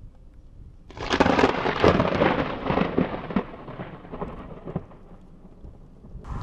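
Thunder from a close lightning strike: a sudden sharp crack about a second in, crackling and then rumbling as it fades over several seconds.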